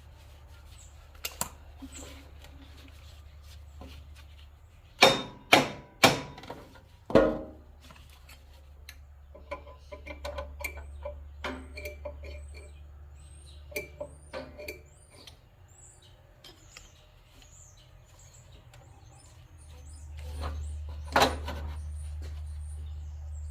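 Sharp metal knocks as the tractor's new range selector lever is tapped onto its shaft and keyway: four in about two seconds, with lighter clicks after and one more knock near the end.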